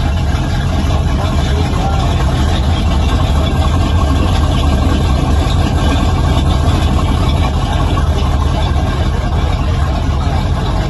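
Inboard engine of a classic wooden runabout idling steadily, a loud, even low-pitched running sound.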